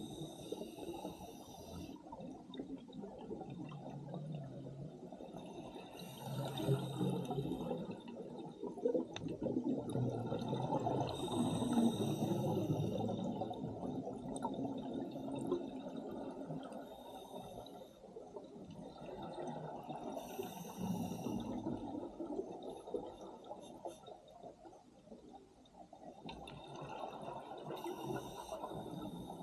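Scuba diver breathing underwater through an open-circuit regulator: exhaled bubbles gurgling and rumbling, with a hissing rush of breath about every four to five seconds.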